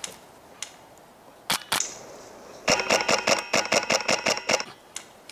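Airsoft rifle with a Polarstar compressed-air engine firing: two single shots about a second and a half in, then a rapid burst lasting about two seconds, with a high ringing tone through the burst.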